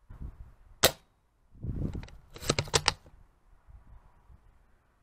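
Airsoft guns firing: a single sharp crack about a second in, then a short low rumble, then a quick volley of about five cracks near the middle.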